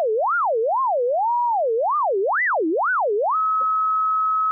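A SuperCollider sine-wave synth sonifying data, its pitch set by measurements of watts per square metre: a single pure tone swooping up and down about twice a second. About three seconds in, it locks onto one steady high tone that keeps going, because the synth could not be made to stop playing.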